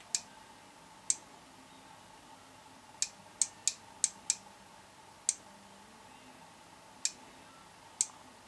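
Light, sharp clicks, about ten at uneven intervals with a quick run of five near the middle, over a faint steady hum, from an earth-bond probe pressed against a power supply's metal case and the PAT tester during an earth-continuity test.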